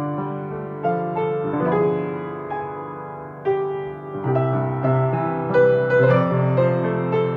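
Piano music: chords over a bass line with a simple melody on top, a new note or chord struck every half second or so and each ringing on as it fades.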